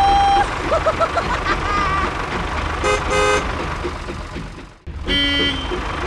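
Toy vehicle sound effects: a steady low engine rumble under a run of horn toots and beeps. A long toot comes at the start, then a quick string of short beeps about a second in, two toots around three seconds, a brief cut-out just before five seconds, and another toot after it.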